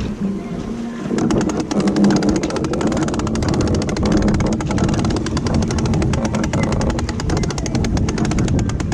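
Music with a steady, quick percussive beat starting about a second in, over the noise of the boat and sea.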